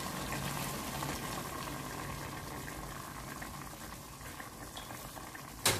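A pot of sautéed pork and intestines bubbling and sizzling as a little water is poured in, a steady hiss that slowly fades. A sharp clack sounds just before the end.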